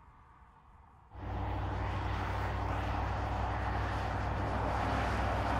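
Faint outdoor background, then about a second in the Audi SQ8's 4.0-litre twin-turbo V8 cuts in abruptly, running steadily as the SUV drives along. It grows slowly louder.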